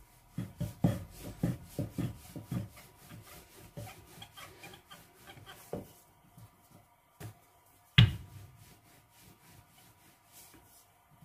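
Wooden rolling pin rolling out a round of roti dough on a wooden countertop: a quick run of rolling thumps and rubbing, about three a second for the first few seconds, then softer rolling. A single sharp wooden knock about eight seconds in is the loudest sound.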